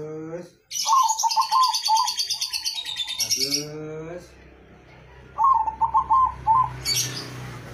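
Caged zebra dove (perkutut) singing its 'noklak' song: twice, a rising note followed by a quick run of short coos. Over the first phrase comes a loud, high, rapid chirping.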